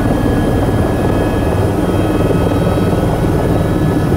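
Helicopter rotor and turbine noise heard inside the cabin as it lifts off: a loud, steady rumble with a thin, steady high whine over it.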